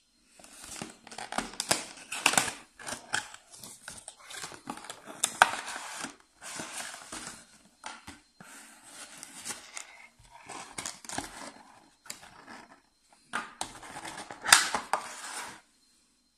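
Cardboard box and clear plastic packaging tray being handled and opened: irregular rustling, scraping and crinkling with a few sharp plastic clicks and snaps, the loudest snap near the end.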